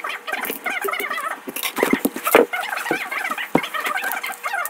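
Birds chattering and warbling without a break, with a few sharp knocks from metal hand tools being handled, the loudest about two and a half seconds in.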